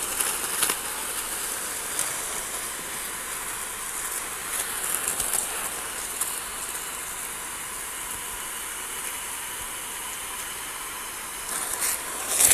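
High-pressure washer jet spraying from the gun: a steady hiss of water blasting across grass and bare soil, with small swells as the aim moves.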